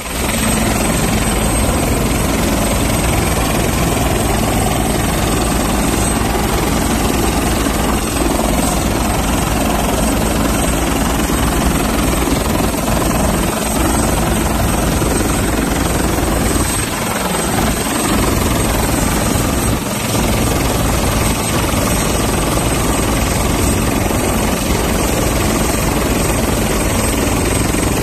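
Helicopter running on the ground close by with its rotor turning: a loud, steady engine and rotor noise with a thin high whine over it.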